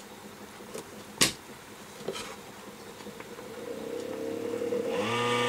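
A click, then the small fan of a mini dehumidifier spinning up with a rising whine that becomes a steady, loud buzz near the end. The fan is worn out: even freshly cleaned and oiled, the owner judges that it has had it.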